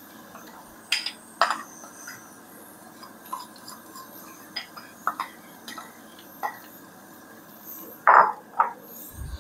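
A metal spoon scraping and clinking against a bowl and pan as sticky jaggery is scraped out: a string of short, separate clinks and scrapes, the loudest pair near the end.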